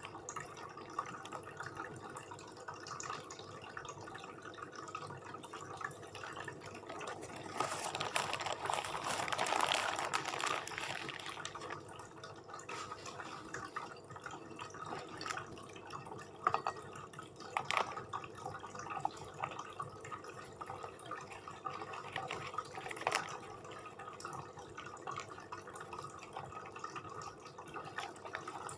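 Close-miked wet eating sounds from a meal of satay and nasi gulai (rice in curry broth). There is a louder stretch about eight seconds in and a few sharp clicks later on.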